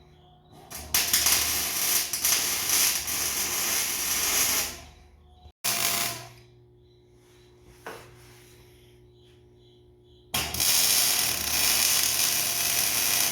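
Electric arc welding on steel: the arc crackles and sputters in two long runs of about four and three seconds, with a short burst between them and a faint steady hum in the pauses.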